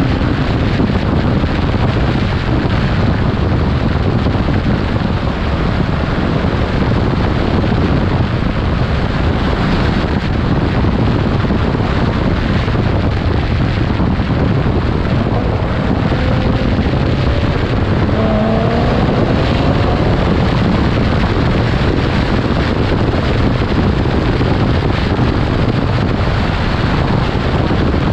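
Steady, loud wind buffeting on the microphone of a camera riding on a moving vehicle at road speed, with road and engine noise underneath. Past the middle, a faint engine note rises briefly a couple of times.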